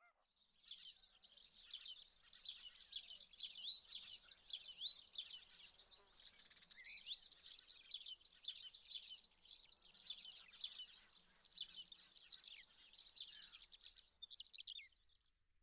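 Faint, dense chorus of many small birds chirping and twittering, with quick overlapping calls. It starts just under a second in and cuts off abruptly near the end.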